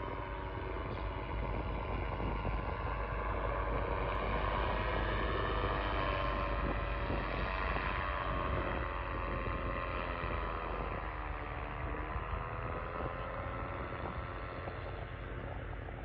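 Powered paraglider trike's engine and propeller droning in flight, a steady buzz whose pitch sags about eleven seconds in and then climbs again.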